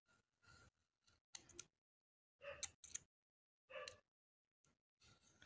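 Faint handling sounds from the opened phone and the syringe: a few scattered small clicks and short rustles, with near silence between them.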